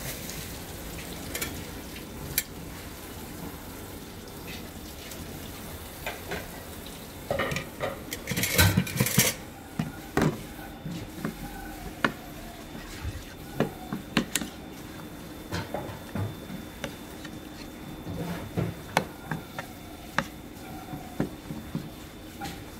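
A metal spoon clinks and scrapes against a ceramic bowl while stirring flour and water into a paste, with scattered clicks throughout. A cluster of louder knocks and clatter comes about eight to nine seconds in.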